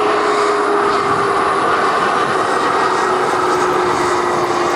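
Bombardier CRJ1000 regional jet passing low on final approach, its two rear-mounted turbofans running at approach power: a steady, loud rushing noise with a whining tone that slowly falls in pitch.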